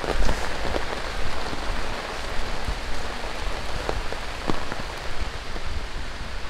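Steady tropical rain falling on the surfaces around, with scattered louder single drops hitting close by.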